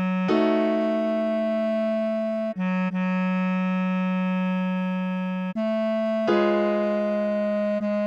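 Bass clarinet playing the melody in long held notes over piano chords. The chords are struck about a third of a second in and again at around six seconds, each left to ring and fade.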